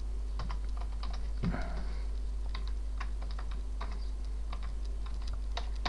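Irregular light clicks, several a second, over a steady low hum.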